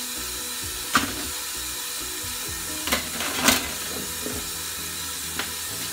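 Kitchen tap running steadily into a sink during hand dishwashing, with a few sharp clinks of dishes about one, three and three and a half seconds in.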